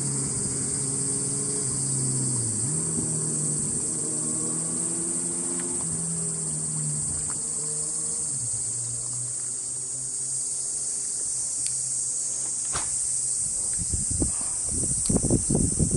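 Steady high-pitched drone of insects from the lakeside trees. Under it, a low engine hum drifts in pitch through the first half and fades, and a few muffled bumps and rustles come near the end.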